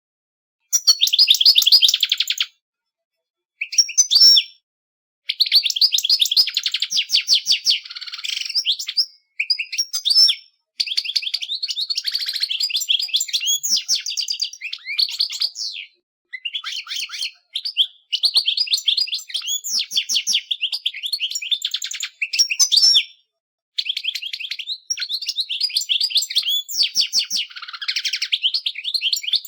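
European goldfinch singing: fast, high-pitched twittering and trilling in long run-on phrases. The phrases are broken by about a dozen brief dead-silent gaps.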